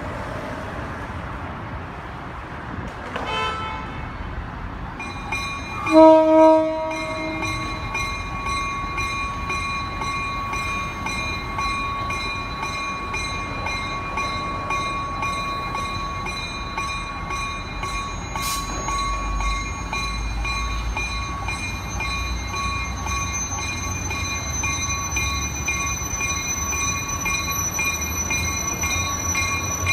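Horn of an approaching Coaster commuter train: a short faint blast about three seconds in, then a louder blast a few seconds later, the loudest sound here. A bell then rings steadily, and the low rumble of the train grows as it nears.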